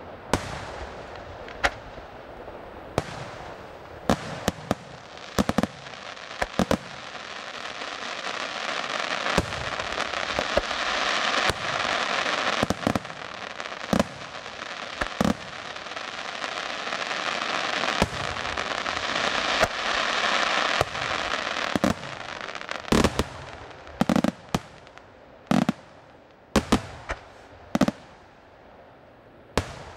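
Aerial firework shells bursting in a display: a string of sharp bangs, over a dense noise that swells in the middle and then fades, leaving separate, spaced bangs near the end.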